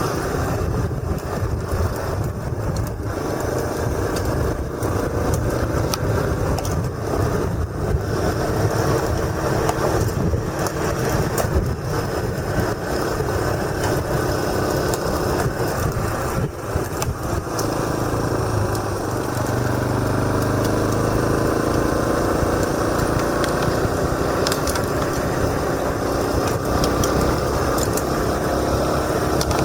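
Motorcycle engine running while riding a forest road, heard from a camera strapped to the rider's helmet, with a heavy low rumble of wind and road noise. The engine note rises and falls, then holds steadier in the last third.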